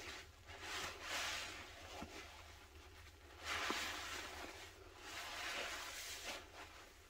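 Porous sponge soaked in sudsy pine cleaner, squeezed by hand in a basin of thick foam: three long wet, squishy squeezes with quieter pauses between them.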